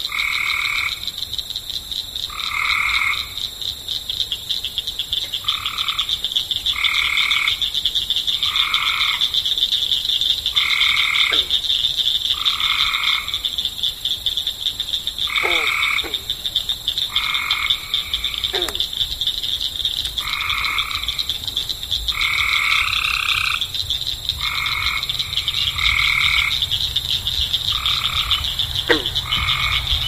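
Frog chorus at a pond: a loud croak repeats every second or two over an unbroken high-pitched trill, with a few short falling calls now and then.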